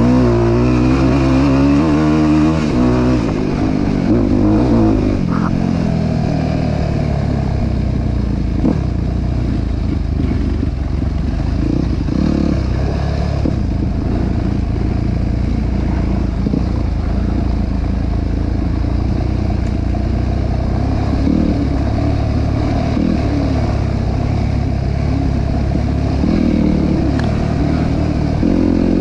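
ATV engine running while riding, revving up and down for the first few seconds and then holding a fairly steady pitch, with a couple of short knocks.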